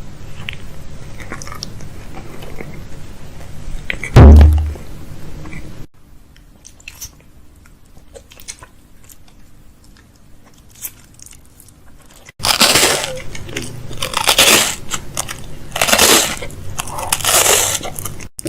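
Kitchen restocking handling sounds: containers and packaging being picked up and set down, with clicks and crunchy rustling, and one loud low thump about four seconds in.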